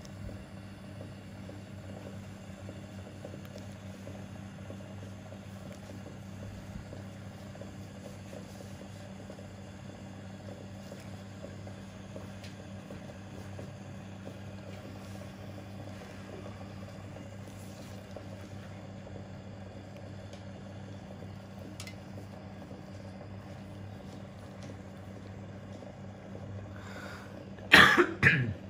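A steady low electrical hum, then a person coughing twice, loudly, near the end.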